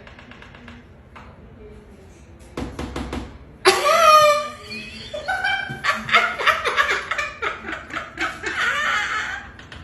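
People laughing hard. The first couple of seconds are quiet; a loud high-pitched shriek of laughter comes about four seconds in, followed by several seconds of pulsing laughter.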